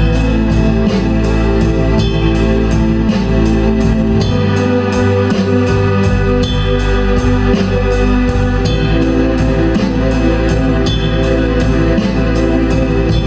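Blues-rock band playing: a drum kit keeps a steady beat under held organ-sound chords, with bass and guitar.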